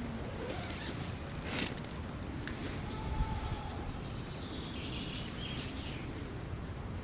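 Outdoor woodland ambience: steady wind noise on the microphone with faint bird calls, and a couple of brief rustles of gear being handled in the first few seconds.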